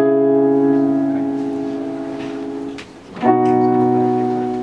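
Electronic keyboard playing two piano-like chords: one struck at the start and left to ring and fade, the next struck about three seconds in.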